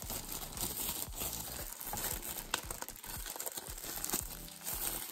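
Packaging crinkling and rustling in the hands as the camera is unwrapped and taken out of its box, an irregular run of crackles.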